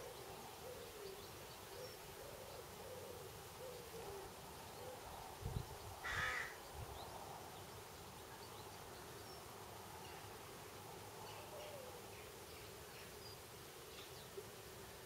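Flying insects buzzing close by, a wavering drone over a faint wash of rippling stream water. About six seconds in, a single short animal call is the loudest sound, with a couple of low thumps just before it.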